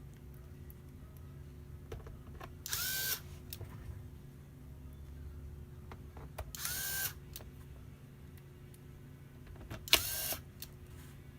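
Small electric screwdriver running in three short bursts of about half a second each, its motor whining up to speed each time, with light clicks of screws and parts being handled in between.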